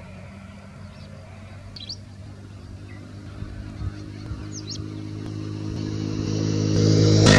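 A motor vehicle engine running at a steady pitch, growing steadily louder as it approaches. A few short bird chirps sound over it.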